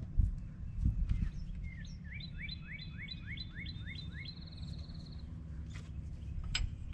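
A songbird sings a phrase of about nine quick rising notes ending in a short trill, over a steady low rumble. A couple of dull low thumps come in the first second.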